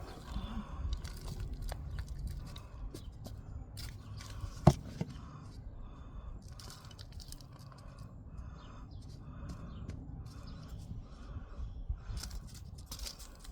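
Hand gardening work while seeds are planted: scattered clicks and scrapes, with one sharp click about a third of the way in. A bird calls over and over at an even pace of about two calls a second through the middle.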